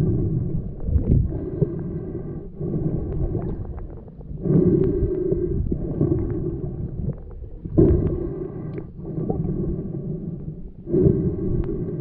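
A diver breathing through a snorkel, heard with the microphone underwater: hoarse breaths in and out in steady turns about every second and a half, each with a hollow hum.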